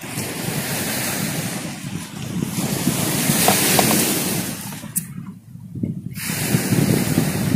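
Seaside wind and waves: a broad rushing noise that swells and fades, drops away briefly about five seconds in, then builds again.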